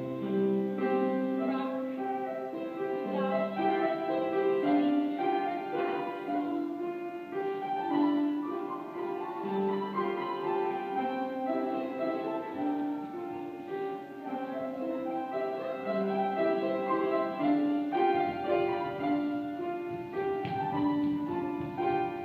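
Instrumental classical-style music playing, a melody of held notes over a lower accompaniment.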